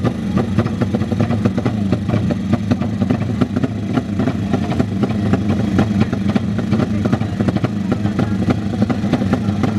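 Drag-racing motorcycle engines running: a steady low drone with a rapid, irregular crackle over it.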